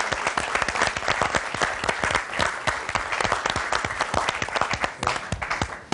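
Studio audience applauding; the clapping thins out and stops near the end.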